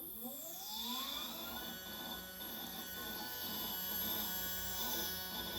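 SkyWatcher EQ6-R Pro equatorial mount's stepper motors slewing: a whine that rises in pitch over the first second and a half as the motors speed up, then holds a steady multi-tone whine.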